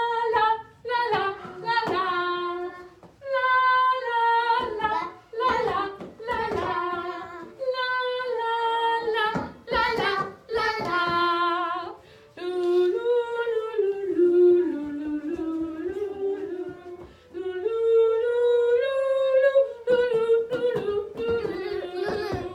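A woman singing a melody unaccompanied on repeated 'la' syllables: short separate notes at first, then longer flowing phrases that glide up and down from about halfway.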